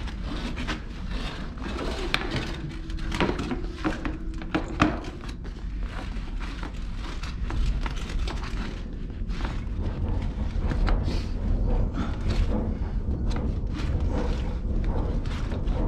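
Irregular scraping and knocking as a high-pressure drain-jetting hose is pulled back by hand through the pipe, with the water pressure off. A steady low rumble runs underneath.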